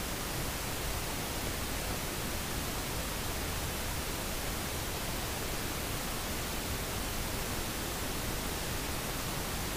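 Steady, even background hiss, the recording's noise floor, with no other sound.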